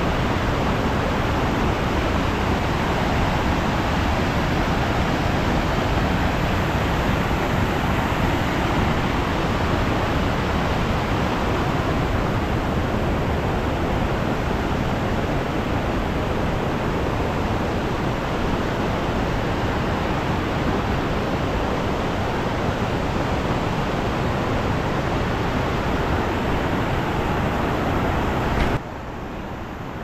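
Shallow river rushing in whitewater rapids over flat rock slabs: a loud, steady rush of water. About a second before the end it drops suddenly to a quieter steady hiss.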